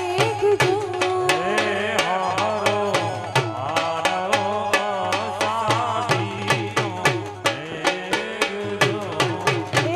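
Live Gujarati folk raas music: tabla and dhol beating a fast, steady rhythm, about three to four strokes a second, under a melody with gliding drum tones and singing.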